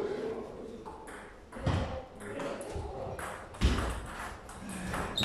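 Table tennis rally in doubles: a celluloid-type ball clicking off rackets and the table in quick, irregular exchanges, with a heavier thump about three and a half seconds in.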